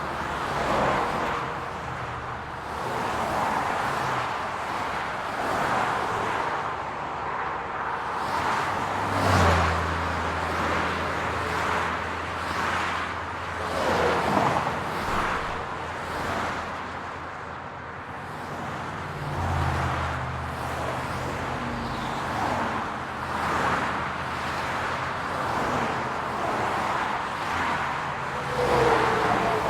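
City road traffic: a steady wash of cars passing, swelling and fading every few seconds, with a low engine hum from a nearby vehicle through much of the middle.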